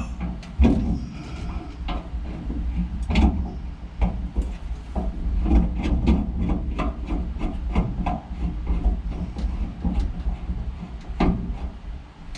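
Hands working with tools and parts: an irregular run of knocks, clicks and rubbing, over a steady low rumble.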